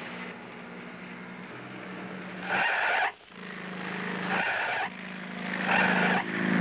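Cartoon jeep engine sound effect: a steady low buzz, broken about every one and a half seconds by short hissing bursts, four in all, louder toward the end.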